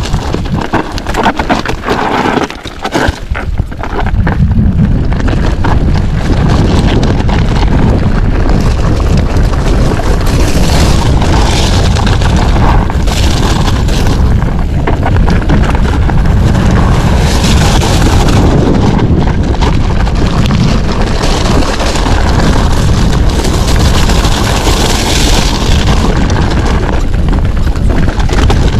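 Wind buffeting an action camera's microphone during a fast mountain-bike descent, mixed with the rumble and rattle of the bike over rough trail. The first few seconds are quieter, with scattered knocks, and the steady loud rush sets in about four seconds in.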